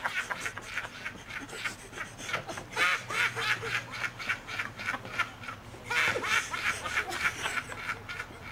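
A woman laughing hard and long: a rapid, high-pitched laugh in repeated runs of quick pulses, about five a second, loudest about 3 s in and again about 6 s in.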